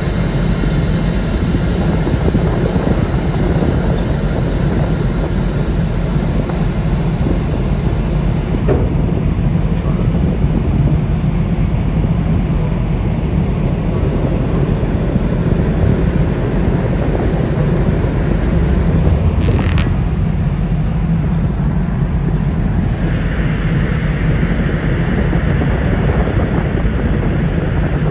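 Steady low drone of the berthed car ferry Kitakami's engines and shipboard machinery running before departure, with a brief tick partway through.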